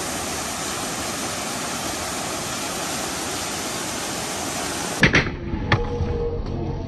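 A waterfall's steady rush of falling water. About five seconds in it cuts off abruptly, giving way to skateboard wheels rolling on concrete and a few sharp clacks of the board popping and landing.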